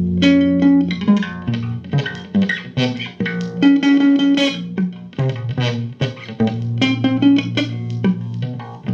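Guitar music: single notes plucked in quick succession, each ringing briefly, over held low bass notes.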